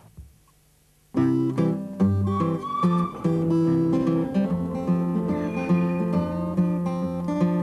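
Background music led by acoustic guitar, strummed chords under a melody line, starting suddenly about a second in after a moment of near silence.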